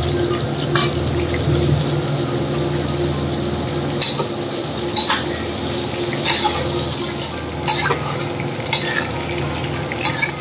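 Duck pieces sizzling as they are stir-fried in a wok, with a metal spatula scraping and clanking against the pan about seven times at irregular intervals, over a steady low hum.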